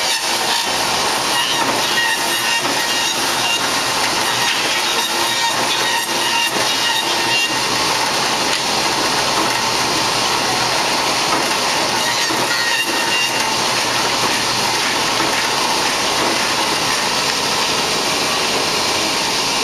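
Wooden-hanger shaping machine running steadily while it machines a clamped stack of hanger blanks: a dense, even mechanical hiss with no break.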